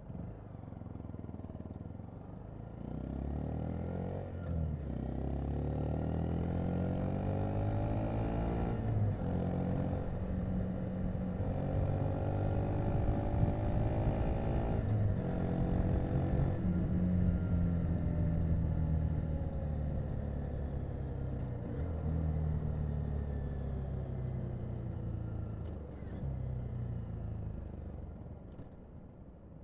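Honda Monkey's small single-cylinder four-stroke engine pulling away and accelerating up through the gears, its pitch rising in several steps with short breaks at each shift. It then runs steadily at cruising speed and eases off near the end as the bike slows.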